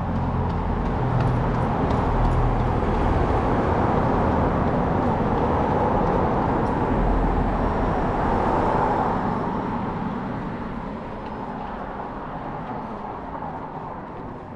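A motor vehicle passing close by: its noise swells over the first couple of seconds, holds, then fades away from about nine seconds in.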